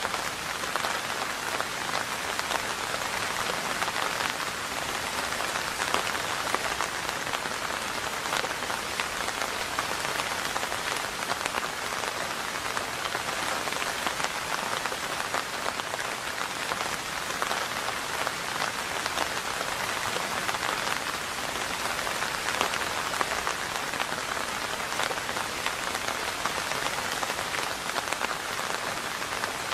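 Steady rain falling on a surface: a constant hiss of many small drop impacts, even in level throughout.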